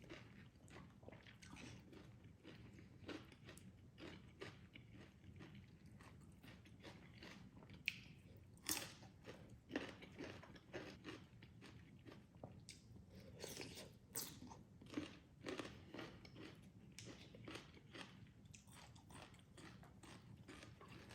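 A person eating a spicy salmon salad with crunchy raw vegetables: faint, irregular crunching bites and chewing.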